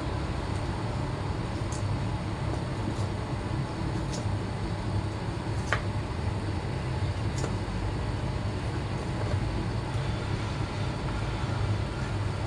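A steady low hum and hiss, with a few faint clicks from a knife slicing peeled bananas, the pieces dropping onto a stainless steel plate.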